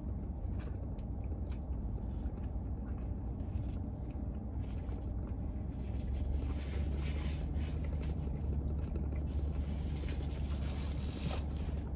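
Steady low rumble of an idling car, heard from inside its cabin, with faint chewing and small soft crackles from a man eating a wrap.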